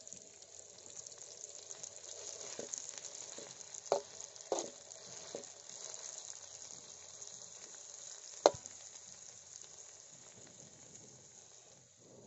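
Chopped chili, garlic and shallot paste frying in oil in a metal wok, a steady sizzle throughout. A few sharp clicks and knocks of a metal spatula against the wok, the loudest a little past the middle.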